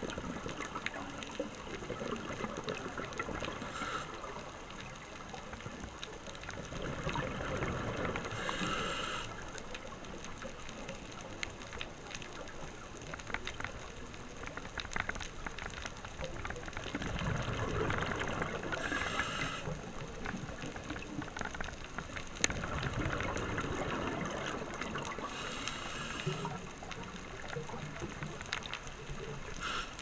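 Scuba diver breathing through a regulator underwater: four long bursts of exhaled bubbles gurgling several seconds apart, over a steady underwater hiss, with one sharp click about two-thirds of the way through.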